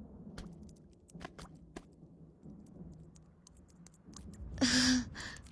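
Animated-film sound effects: a low rumble with scattered small clicks, then a louder short burst with a low tone about four and a half seconds in.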